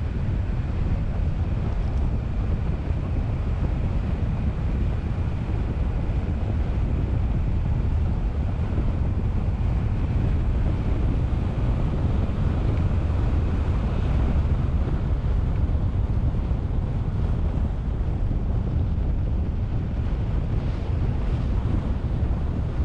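Steady wind buffeting on the microphone of a camera mounted on a moving car, a low rumble mixed with road noise as the car drives along.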